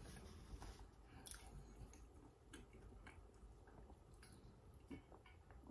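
Faint chewing: soft, scattered mouth clicks and smacks of someone eating.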